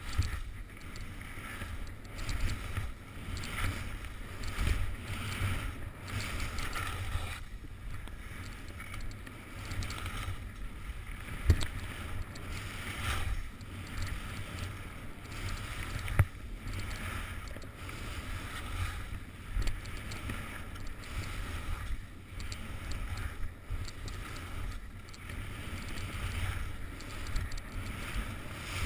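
Skis scraping and hissing over packed snow and small moguls during a downhill run, with wind buffeting the action camera's microphone. A few sharp knocks stand out, the loudest about 11 and 16 seconds in.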